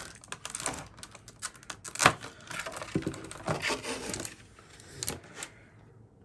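Stiff clear plastic blister tray being handled and lifted away: a run of crackles, clicks and taps, the loudest about two seconds in, dying away after about five seconds.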